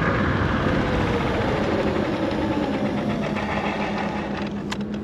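Electric scooter under way: a motor whine that falls slowly in pitch as the scooter slows, over a steady rushing noise and low hum. A few sharp clicks come near the end.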